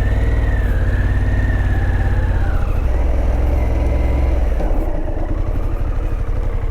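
Harley-Davidson Pan America's V-twin engine pulling the bike up to speed, then dropping back to a lower note about four and a half seconds in as the rider brakes hard to a stop.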